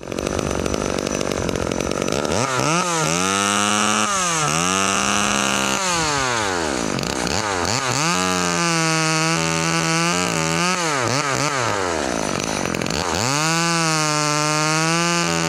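Vintage Jonsered M361 two-stroke chainsaw with 1/4-inch chain running very fast and cutting through a box-elder log. Its whine rises and falls several times as the throttle is worked, and holds a steady pitch while the chain is in the cut.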